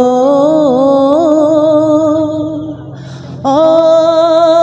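A man singing unaccompanied: a long held note with a slight waver, a short pause for breath about three seconds in, then a second, higher held note.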